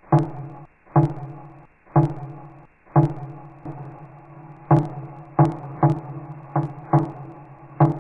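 Rock music: the same chord struck hard together with a drum hit, each stab ringing out and fading. The stabs come about once a second at first, then closer together, about twice a second, in the second half.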